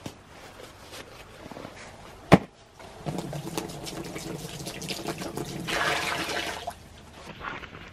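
A single sharp knock, then a stream of water pouring into a black rubber livestock pan set in a tyre, running for about four seconds and stopping abruptly.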